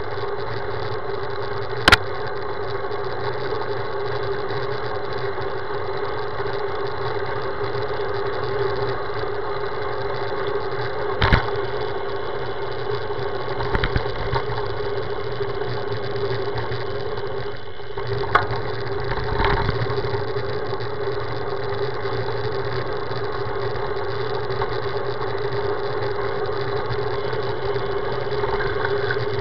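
Steady hum and rush of a road bicycle rolling on asphalt, heard through a camera mounted on the bike. A few sharp knocks from bumps jolt the mount, the loudest about two seconds in and others around eleven, fourteen and eighteen seconds.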